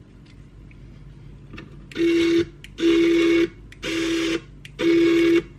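Small electric motor and gearbox of an RC crawler winch whirring in four short bursts, about a second apart, as it is pulsed from its remote.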